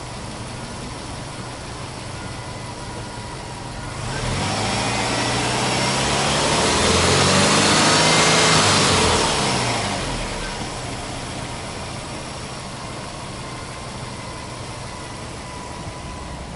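Subaru Impreza WRX STI's turbocharged flat-four boxer engine idling, then free-revved once with the car standing still: the revs climb slowly from about four seconds in, peak a few seconds later and fall back to a steady idle about ten seconds in.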